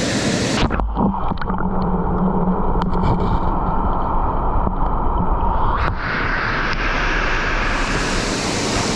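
Steady rush of water from a waterfall on a mountain stream. It turns duller from about a second in, with a couple of knocks, and brightens again after about six seconds.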